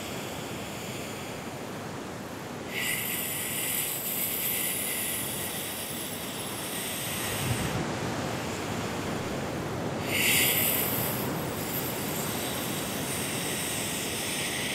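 A person doing a pranayama breath exercise: two long, hissing inhales through pursed lips of about five seconds each, one starting about three seconds in and the other about ten seconds in, each followed by a shorter, quieter exhale through the nose. A steady background hiss runs underneath.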